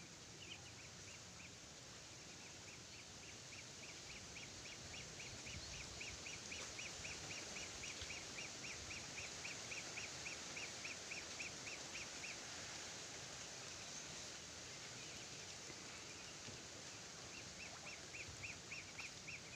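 A bird or other animal giving a long run of short, evenly spaced calls, about four a second, over a steady outdoor hiss; the calling stops about twelve seconds in and starts again near the end.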